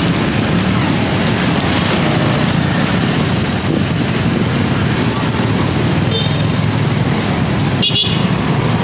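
Steady street traffic noise, with vehicles running and passing and voices in the background. A few brief high-pitched tones come a little past halfway.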